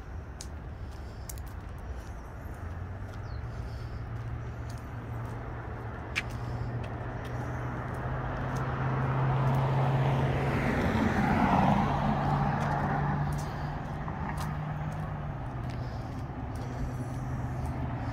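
Street traffic: a steady low engine hum underneath, and a vehicle passing close with a noisy swell that rises and fades about ten to twelve seconds in.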